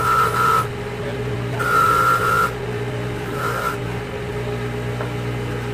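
Bench grinder motor running with a steady hum while a Mazda 13B rotary-engine rotor is pressed against its spinning wheel to clean the rotor face. There are three spells of higher-pitched grinding; the first ends about half a second in, the second lasts about a second, and the last, near the middle, is short.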